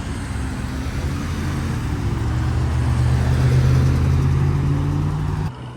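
Road vehicle engine running close by with a steady low hum and road noise, growing louder toward the middle, then cutting off suddenly near the end.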